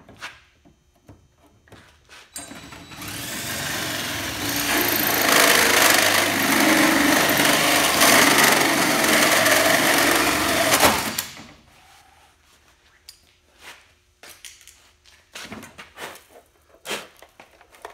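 Cordless drill driving a hole saw through a plastic cup-holder panel: a steady cutting whir starts about two seconds in, gets louder about five seconds in, and cuts off sharply about eleven seconds in. Before and after it, scattered light clicks and knocks of the part being handled.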